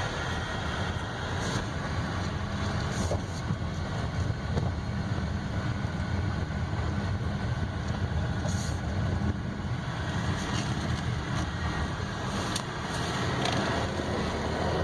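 Steady low road and engine rumble inside the cabin of a 2016 Buick Envision as it is driven along.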